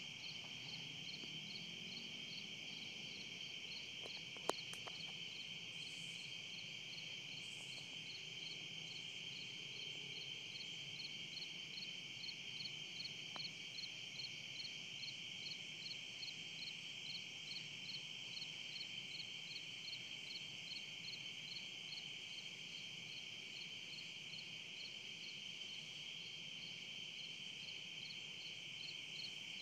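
Night-time chorus of calling insects: a steady high trill with a regular chirping pulse above it, about two chirps a second. A single sharp click about four and a half seconds in.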